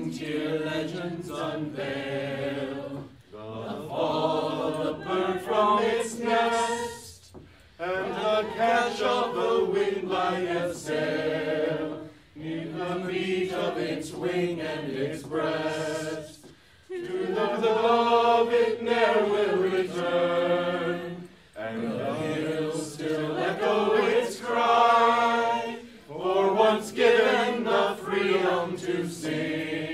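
A man singing a ballad unaccompanied, in long sustained phrases with short breaks for breath.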